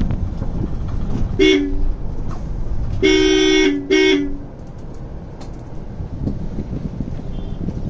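Vehicle horn honking three times: a short honk, then a longer one, then another short one in quick succession. Under it runs a steady low rumble of road and wind noise from a moving vehicle.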